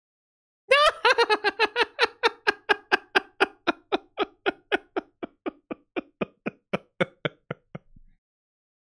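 A long fit of high-pitched laughter: quick, evenly spaced 'ha' pulses, about four a second, each dropping in pitch. It starts loudest about a second in, then slowly fades and slows until it stops near the end.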